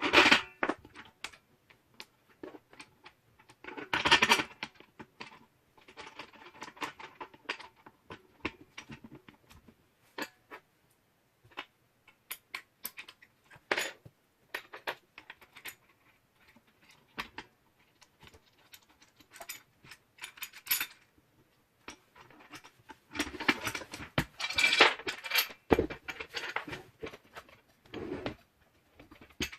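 Metal parts of an angle grinder cutting stand being handled: scattered clicks and clinks with short rattling spells, and a longer, louder spell of handling near the end.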